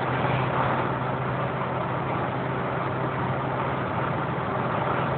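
SsangYong Actyon at full speed, about 170 to 180 km/h, heard from inside the cabin: a steady engine drone under even wind and road noise.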